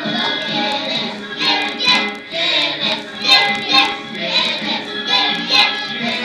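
A group of children singing a song together, with music.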